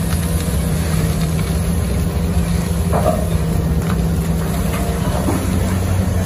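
Excavator engine running steadily with a low, even drone.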